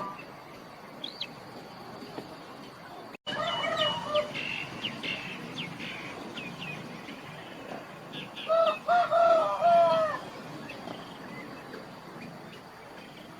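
Chickens clucking and calling in short, pitched bursts. There are a few calls just after a sudden cut early on, then a louder run of several calls near the middle, with thin high chirps in between.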